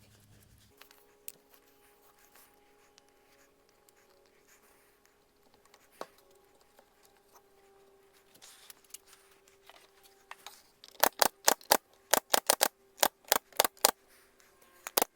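Workshop hum, then a quick run of sharp clicks or knocks, about five a second for some three seconds, with one more near the end.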